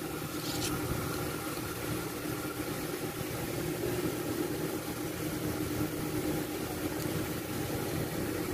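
Steady mechanical hum of a running motor, an even drone with a constant pitch that does not rise or fall.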